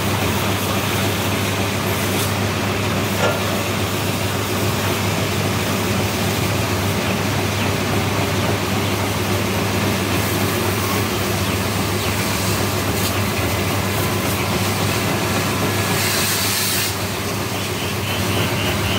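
High-pressure water spray hissing as it washes down a tractor, over the steady low drone of a running motor. The spray turns harsher for about a second near the end.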